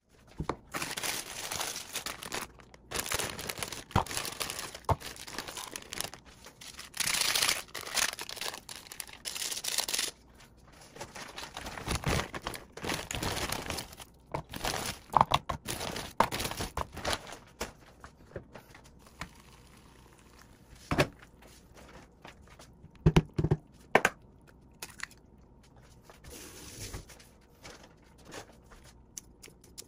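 Anseongtangmyeon instant noodle packet crinkling and being torn open. After that come scattered light knocks and taps as the noodle block and other ingredients go into a plastic bowl.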